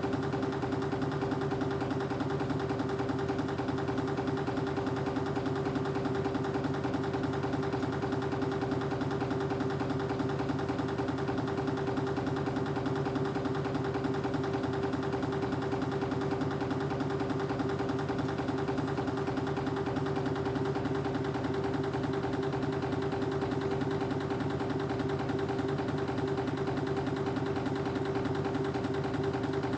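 Wire-processing machinery for spring making running steadily: a constant hum with one strong, steady mid-pitched tone that never changes.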